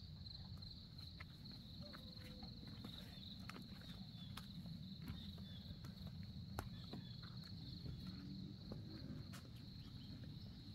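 Steady high-pitched chorus of insects, like crickets, with faint irregular footsteps.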